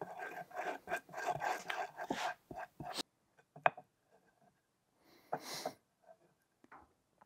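Hardwood strips being handled during a glue-up: rubbing with light wooden clattering, which stops abruptly about three seconds in. After that come a few separate wooden clicks and knocks and one short scrape.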